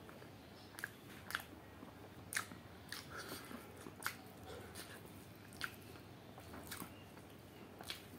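Close-up chewing of chicken curry and rice, with short wet lip smacks and clicks at irregular intervals, about eight in all.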